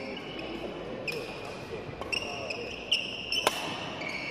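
A badminton doubles rally on a wooden gym floor: sneakers squeak sharply as the players lunge, and rackets strike the shuttlecock with sharp cracks, the loudest about three and a half seconds in.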